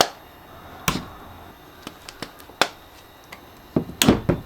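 Sharp clicks and taps of hand tools being handled while working a stuck router bit out of its collet: single knocks every second or so, then a quick cluster near the end.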